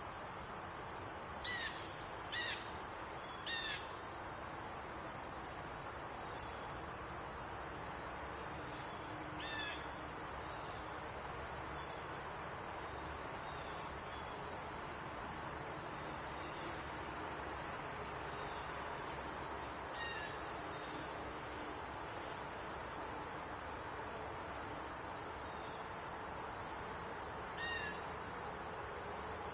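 Steady high-pitched chorus of insects in late-summer woods, with a few short bird chirps over it: three in quick succession near the start, then single ones spaced out across the rest.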